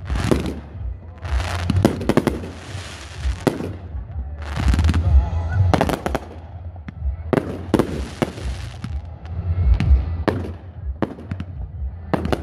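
Aerial fireworks display: shell bursts going off in quick succession, with stretches of dense crackling between the booms and a low rumble underneath.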